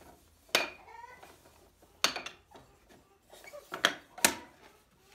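Sharp wooden knocks and clunks from handling a wooden flipper box-joint jig on a table saw top: four separate knocks, the last two close together near the end. The saw is not running.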